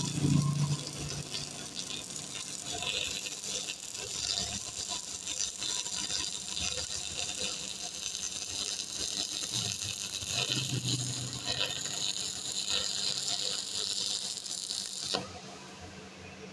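Stick (arc) welding on steel bar: the electrode's arc crackles and sizzles steadily as the bead is laid, then cuts off suddenly near the end when the arc is broken.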